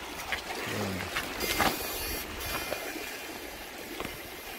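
Rustling and crinkling of a mesh net bag and plastic sack being handled, over steady running river water. A short voiced grunt comes about a second in.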